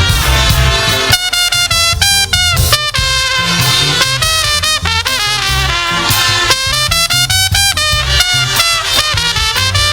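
Live upbeat gospel praise music: a steady bass and drum beat under a lead melody line played in short, bending phrases.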